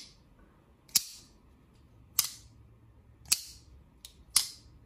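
Full-titanium Hinderer XM-18 flipper knife being flicked open and shut with a snap of the wrist. It gives four sharp metallic snaps about a second apart as the blade slams into lockup, with fainter clicks from the detent between them.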